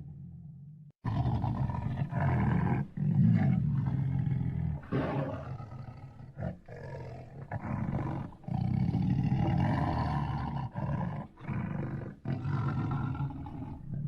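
Lion roaring: a series of long, deep, rough calls with short breaks between them, starting after about a second of quiet.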